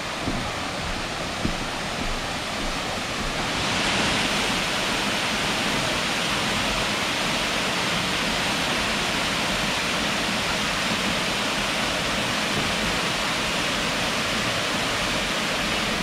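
A 50-foot waterfall plunging down a rock gorge into a pool: a steady, full rush of falling water, growing a little louder and brighter about four seconds in.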